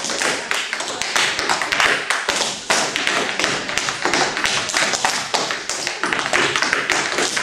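Tap shoes striking a wooden tap board in fast tap dancing: dense, rapid runs of sharp taps.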